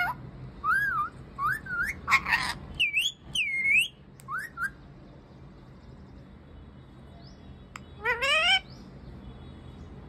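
Green parakeet giving a quick run of whistled chirps and short calls that swoop up and down in pitch. It then falls quiet for a few seconds and gives one short rising call near the end.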